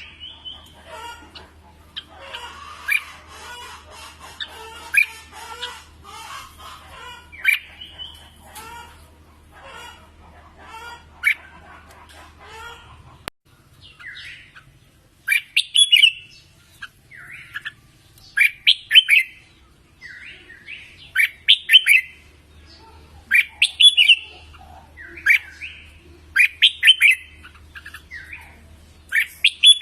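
Red-whiskered bulbuls singing: for the first half a busy run of overlapping chirps, then after a sudden break about halfway one bird repeats short, loud song phrases every couple of seconds. A faint low hum lies under the song.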